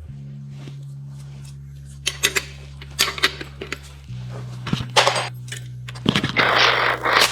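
Background music with sustained low synth notes that change pitch about four seconds in, over a run of sharp workshop clicks and knocks of metal parts and tools. Near the end comes a loud hiss of about a second.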